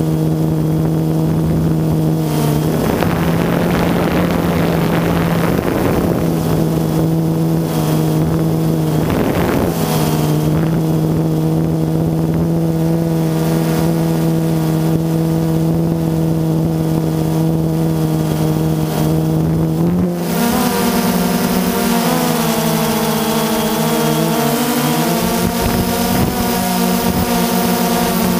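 Drone motors and propellers whirring at a steady pitch, with bursts of rushing wind a few seconds in and again around a third of the way through. About two-thirds of the way in, the whine shifts and wavers up and down as the throttle changes while the drone manoeuvres.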